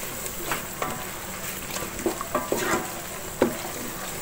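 Wooden spatula stirring and scraping a spice paste as it fries in oil in a metal pot, a soft steady sizzle broken by short scrapes and knocks of the spatula against the pot, the loudest about three and a half seconds in. The masala is being sautéed (kosha) before the rice goes in.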